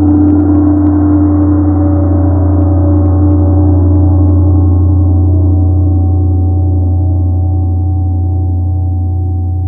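Large Tibetan gong ringing on after mallet strokes: a strong deep hum under many steady higher tones, the upper tones slowly dying away.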